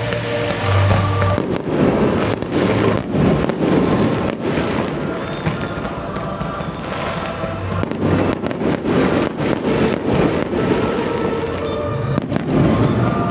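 Fireworks going off in a rapid, dense string of bangs and crackles from aerial shells and ground fountains, with music playing underneath.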